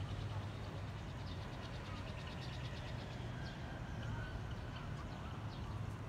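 Outdoor background ambience: a steady low hum with faint distant voices and small high chirps, likely birds.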